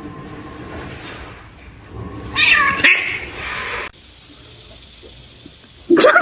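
A cat meowing: one loud, drawn-out, strained meow begins a little over two seconds in and lasts about a second and a half.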